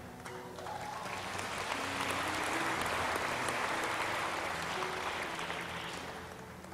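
A large congregation applauding, swelling over the first couple of seconds and dying away near the end, with soft background music underneath.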